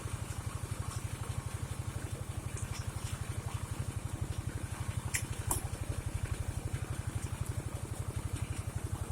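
Engine of a wood saw running at a steady speed, a fast even beat with a few faint clicks on top.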